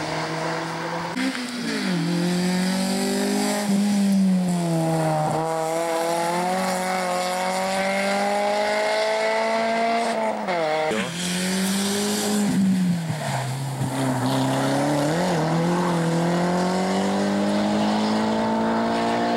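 Rally cars at full effort on a tarmac special stage, one after another. The engines rev hard and climb in pitch, dropping sharply several times at gear changes or lifts for the bends.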